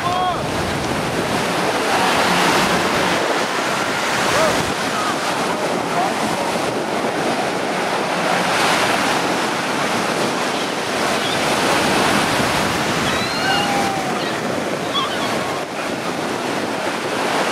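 Ocean surf breaking and washing through the shallows: a steady rush of white water that swells and eases every few seconds, with wind buffeting the microphone.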